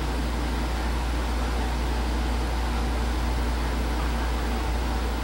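Steady low hum under an even hiss, like a fan running, unchanging throughout.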